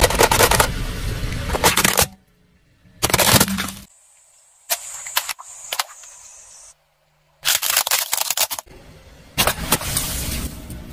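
Car tyre rolling over and crushing things in several separate short bursts: hard plastic cracking and breaking, and water-filled latex balloons bursting with sharp bangs and splashes.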